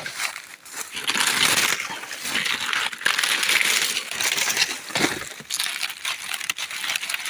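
Dry eucalyptus bark and brush crackling and crunching in an irregular run of crunches and rustles.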